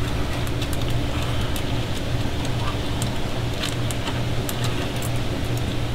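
Light, irregular clicks of hands and a screwdriver working a stainless hose clamp on braided vinyl hose, over a steady low mechanical hum.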